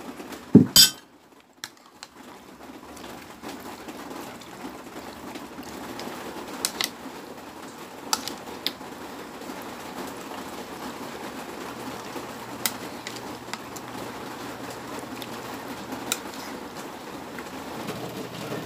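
A metal fork clinking now and then against a ceramic bowl as pork in its soy-and-garlic marinade is stirred, over steady background noise, with one louder knock about half a second in.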